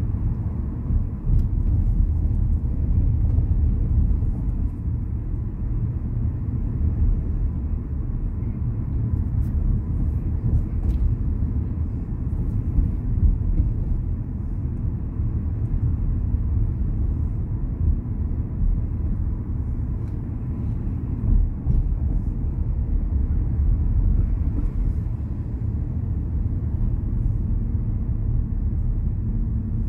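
Steady low rumble of a moving car heard from inside its cabin: road and tyre noise with the car's running gear, no distinct events.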